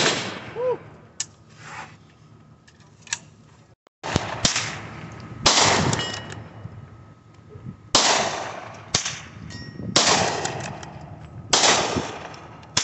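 Gunshots from several guns firing on an outdoor range, about ten shots one to two seconds apart, each trailing off in a long echo. A steel target rings faintly after some of the hits.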